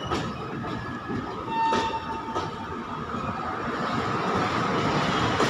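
A train of Indian Railways LHB passenger coaches running past, a steady rumble of wheels on rail with a few sharp clicks as wheels cross rail joints. A short high tone sounds about a second and a half in.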